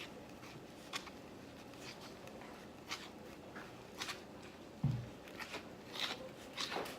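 Slime being mixed and kneaded by hand: scattered sticky clicks and small crackles, with a low thump about five seconds in.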